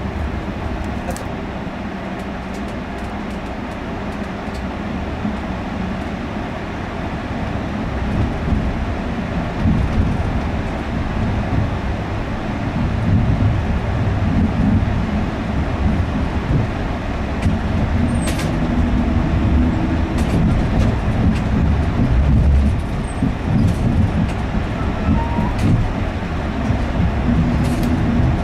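Train running noise heard from inside a moving couchette car: a steady low rumble of wheels on rail that grows louder about a third of the way in, with a few sharp clicks as the wheels cross points.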